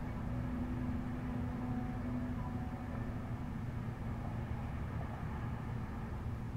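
Steady low rumble of city traffic, with a low hum that fades out about two and a half seconds in.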